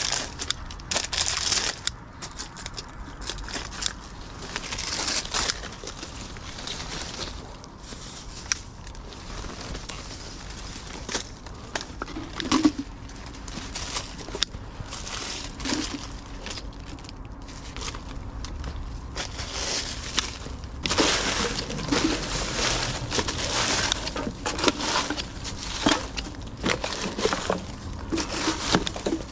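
Branches, dry leaves and plastic litter rustling, crackling and crinkling as litter is pulled out from under dense bushes by a gloved hand, with many small snaps and crackles. It gets busier and louder in the last third.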